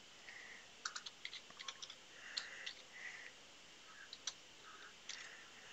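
Faint typing on a computer keyboard: irregular keystrokes, a quick run of them about a second in, then a few single taps.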